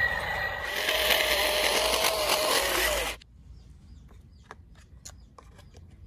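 Toy RC excavator's small electric motors and plastic gears whirring, with a wavering pitch, cutting off abruptly about three seconds in. After that come faint scattered plastic clicks and taps as a toy fuel-pump nozzle is handled.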